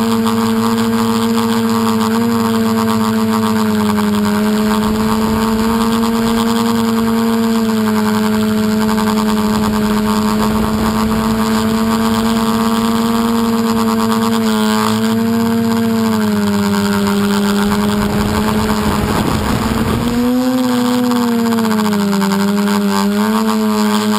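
Multirotor drone's electric motors and propellers humming steadily, heard close up from the onboard camera. About two-thirds through the pitch drops after a short rush of wind noise, and near the end it wavers up and down as the motors change speed.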